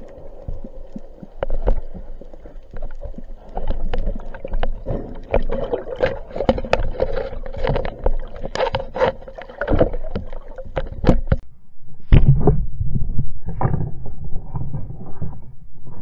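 Underwater sound picked up through a speargun-mounted camera: a run of sharp clicks and knocks over water movement, then from about twelve seconds in a louder, low rumbling of water and handling noise.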